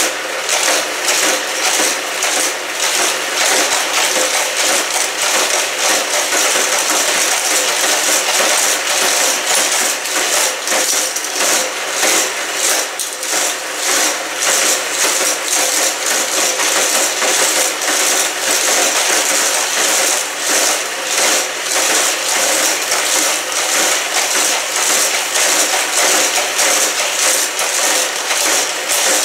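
Motorized boosters of Hot Wheels Criss Cross Crash track sets whirring steadily, with die-cast cars clattering through the plastic loops and knocking together in the crash zones: constant rapid clicking and clacking over the motor hum.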